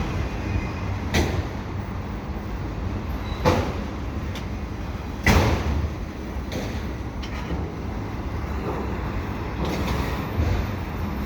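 Slow-moving freight train cars rolling past: a steady low rumble of wheels on rail, broken by a few sharp metallic clanks and bangs from the cars. The loudest bang comes about five seconds in.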